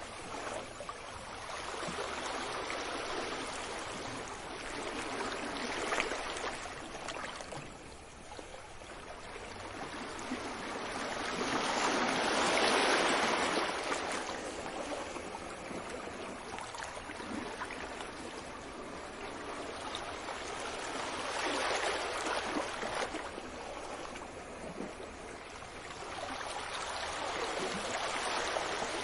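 Ocean waves washing onto a beach, a steady rush of surf that swells and ebbs in slow surges, the loudest about halfway through.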